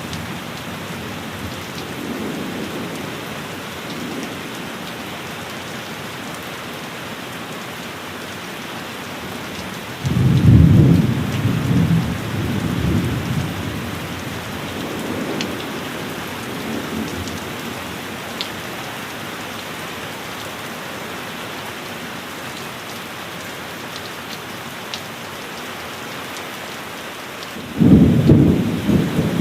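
Thunderstorm: heavy rain falling steadily, with rolling thunder. A loud low rumble breaks suddenly about a third of the way in and rolls on for several seconds, and another begins near the end.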